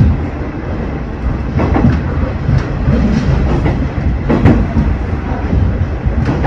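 Diesel railcar running along the rails: a steady rumble with a few sharp knocks as the wheels cross rail joints.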